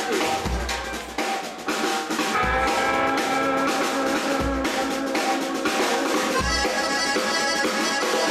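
Live Tex-Mex rock band playing an instrumental passage on drum kit, electric guitars and accordion, with a deep beat about every two seconds under quick drum strikes; held notes come in about two seconds in.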